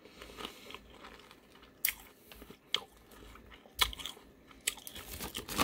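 Chewing a mouthful of Whole Shabang potato chips: quiet chewing broken by four sharp crunches, about one a second.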